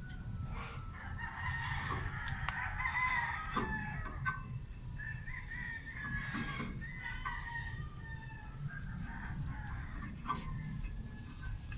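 A rooster crowing: two long calls in the first two-thirds, with fainter calls later, over a steady low rumble.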